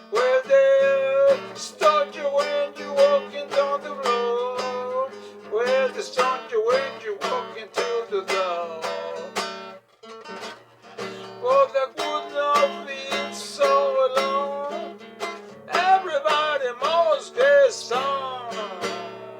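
Instrumental break of acoustic guitar music: strummed chords under a melodic lead line with bending notes, which pauses briefly about halfway through.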